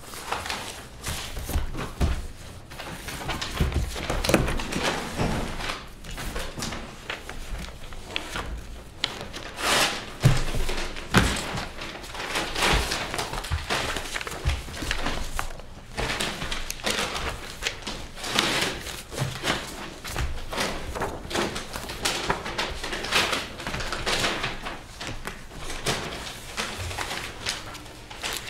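Paper documents and folders being handled and leafed through on a table: continuous irregular rustling of pages, with scattered knocks and thumps on the tabletop.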